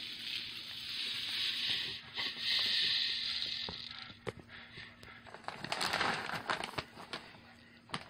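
Dry chicken feed pouring into a plastic container, a steady hiss that dies away about four seconds in, followed by scattered rustling and clicks of handling.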